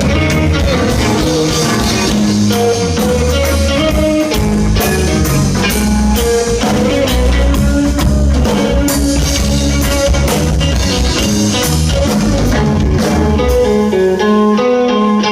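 Band playing an instrumental passage with no vocals: guitar over bass and drums.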